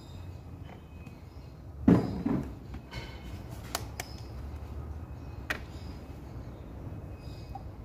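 A loud clunk about two seconds in, then a few sharp clicks and taps: the transmission-oil bottle and fill funnel being handled under the hood. A steady low hum runs underneath.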